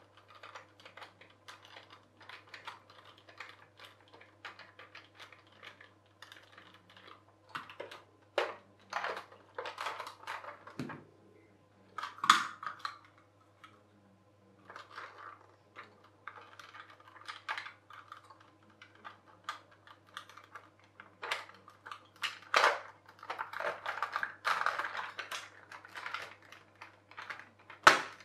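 Small plastic parts of a toy electric train being handled and fitted back together: irregular light clicks, taps and rattles, with a few sharper snaps, the loudest about twelve seconds in and another near the end. A faint steady low hum sits underneath.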